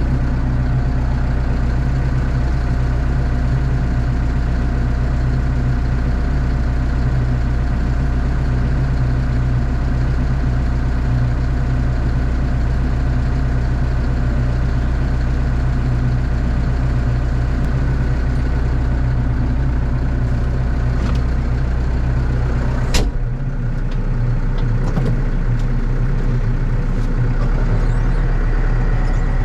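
Diesel engine of a farm machine running steadily under load while pushing muck up a cattle shed. There is a single sharp knock about 23 seconds in, and the engine note dips briefly after it.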